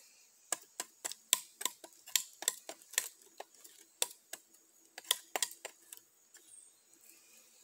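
A bowie knife's 3Cr13 stainless clip-point blade chopping and shaving at the end of a wooden stick to whittle a tent-spike point: a string of sharp, irregular clicks and cracks, about two or three a second, that thins out after about six seconds.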